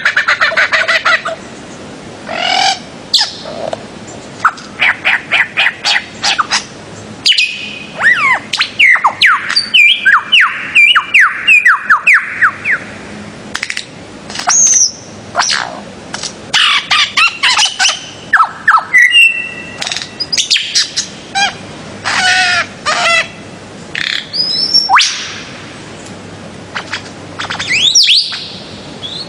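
Paradisaea birds-of-paradise calling: loud chirps and squawks in quick runs, some of them fast strings of short downward-sliding notes, with brief pauses between the runs.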